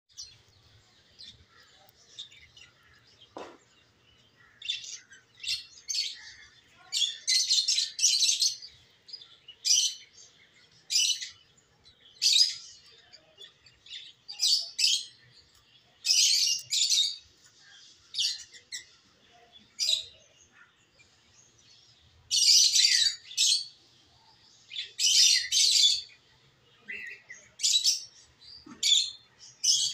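Small birds chirping: quick high chirps, often bunched into runs of up to about a second or so, repeating every second or two with short pauses between.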